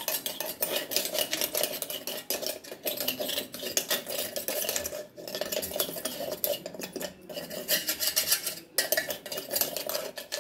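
Metal spoon scraping finely ground powder from the inside of a stainless-steel mixer-grinder jar and around its blade, in quick rasping scrapes that ring on the steel. There are a few brief pauses.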